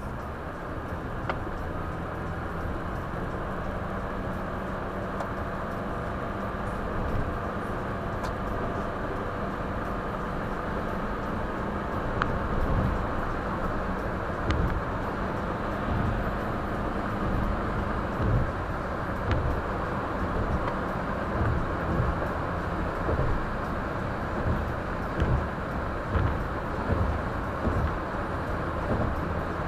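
Car driving, its road and engine noise heard from inside the cabin through a windshield dashcam's microphone as a steady low rumble. In the second half, short low thumps come every second or two.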